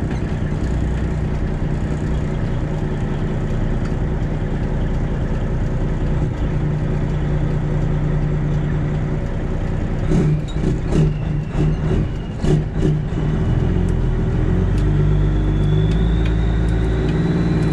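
Semi truck's diesel engine running as the truck moves slowly, with a cluster of irregular knocks and rattles about ten seconds in. Near the end the engine pulls harder and a faint rising whine comes in.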